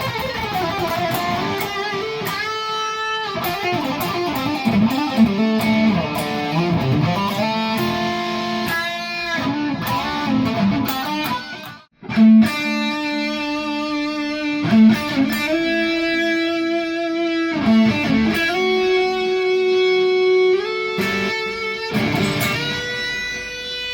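PRS SE Tremonti electric guitar played through a high-gain Bogner Uberschall tube amp and heard from the speaker cabinet: distorted lead lines with bent notes, a sudden brief stop about halfway, then repeated short low notes under held higher notes, ending on a long sustained note.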